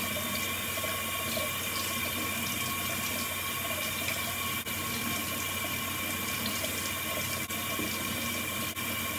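Kitchen tap running steadily into a stainless steel sink as a wooden cutting board is rinsed under the stream.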